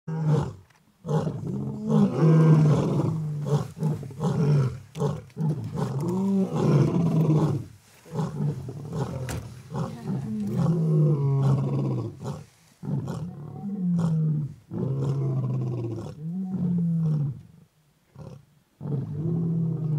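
Lions roaring: a long bout of deep, repeated roars, each a second or two long, with brief pauses between them.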